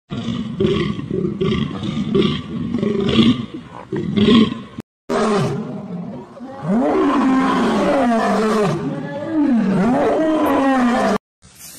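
Lions growling, a string of pitched growls, each rising and falling in pitch. Before them comes a run of short rough sounds, about two a second, then a brief cut to silence.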